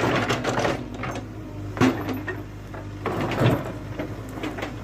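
JCB 3DX backhoe loader's diesel engine running steadily, with three sharp clanks and scrapes of the bucket working rock, near the start, a little under two seconds in, and about three and a half seconds in.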